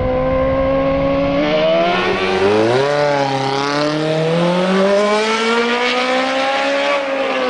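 A small engine on a bicycle made up to look like a sport motorcycle, running and being revved. Its pitch holds steady at first, dips and climbs again two to three seconds in, then rises slowly and drops near the end.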